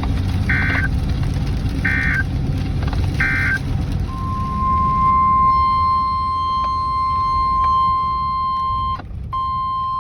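Weather radio alert signals: three short warbling data bursts about a second and a half apart, the SAME end-of-message code closing a tornado warning, then about four seconds in the steady 1050 Hz NOAA Weather Radio warning tone starts and holds, cutting out for a moment near the end. A low vehicle rumble runs underneath.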